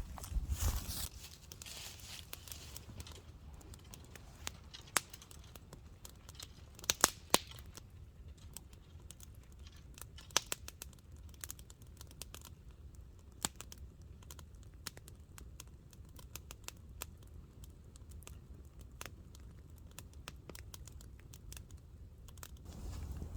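Scattered sharp crackles and snaps of kindling in a small campfire, irregular and fairly quiet, with a rustle at the start and two louder snaps about seven seconds in.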